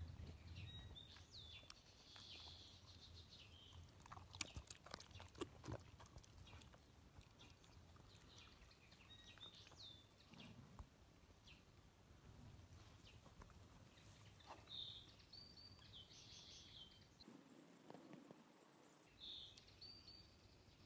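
Faint, quiet sounds of a German Shepherd puppy panting. A few sharp clicks come between about four and six seconds in, and short high chirps sound faintly in the background now and then.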